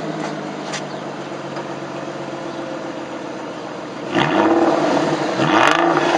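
Aston Martin Virage's V12 idling steadily, then blipped on the throttle twice, about four seconds in and again near the end, each rev rising and falling back.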